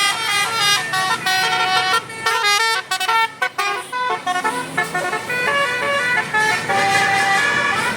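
Bus telolet basuri musical horn playing a quick melody of held notes that step up and down in pitch, with a choppier run of short notes a few seconds in.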